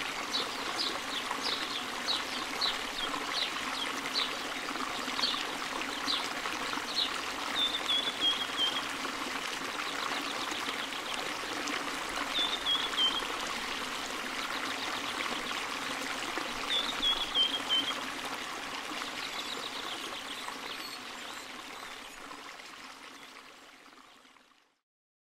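Steady splashing and trickling of a small stream or waterfall, with a bird chirping in short high notes and a few quick falling trills. The whole sound fades out slowly to silence near the end.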